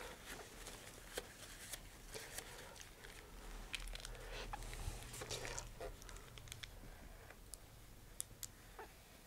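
Faint crinkling and scattered light clicks of a small plastic bag of epoxy being squeezed and handled in gloved hands.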